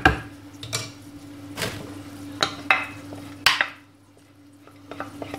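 A metal spoon knocking and scraping against a ceramic jug about six times as a sticky honey mixture is scraped out of it, over a steady low hum.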